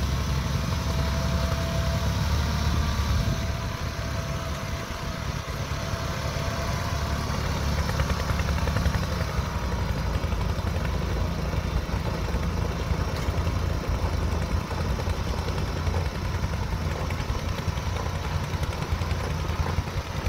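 Diesel engine of a Kubota DC70 combine harvester running steadily under load with a deep, low hum.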